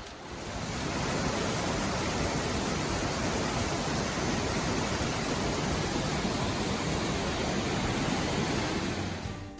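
Fish Creek Falls, a waterfall, rushing with a steady roar that fades in over the first second and fades out near the end.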